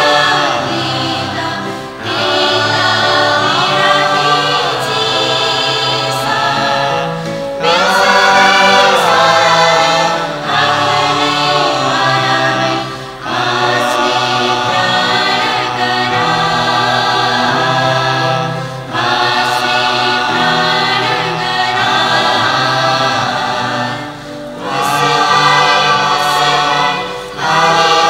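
Choir singing a Nepali choral song: full held chords in phrases of a few seconds, with short breaks between phrases.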